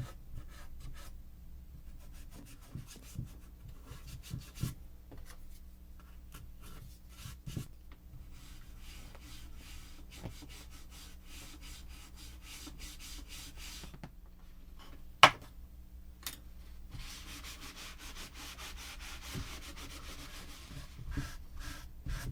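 Hand work on cedar wood: repeated quick scraping and rubbing strokes, with a sharp click about fifteen seconds in.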